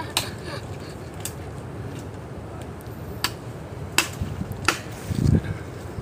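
About five sharp, irregularly spaced knocks, with a duller low thump near the end.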